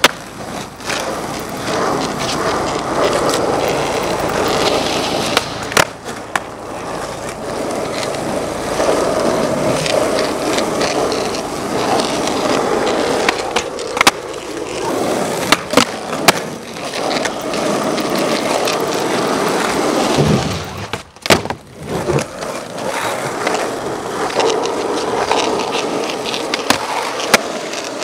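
Skateboard wheels rolling over rough asphalt, broken again and again by sharp clacks of the tail popping and the board landing.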